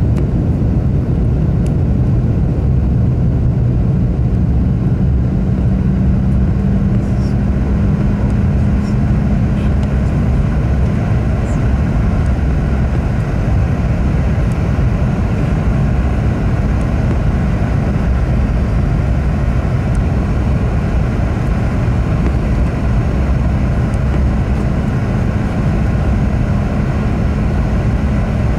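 Steady low roar inside the cabin of a Boeing 717 on approach, from the airflow and its Rolls-Royce BR715 turbofan engines, with a faint steady drone underneath.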